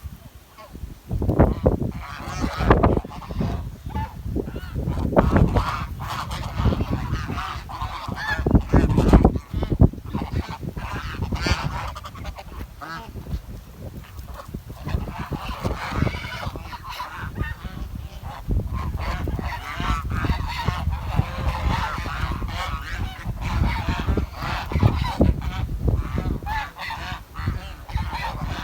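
A swan calling repeatedly with short honking, chirping calls, most of them in the second half. Low thuds and rumble run under the calls and are loudest in the first third.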